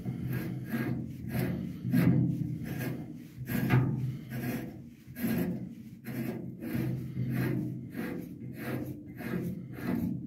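A hand tap in a T-handle tap wrench being worked back and forth in a rusty, damaged bolt hole, chasing the threads: short metal-on-metal rasping strokes, about two a second.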